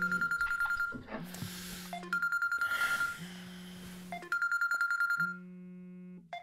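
Smartphone ringing with an incoming call: a rapid high electronic trill about a second long alternating with a lower buzzing tone, repeating about every two seconds.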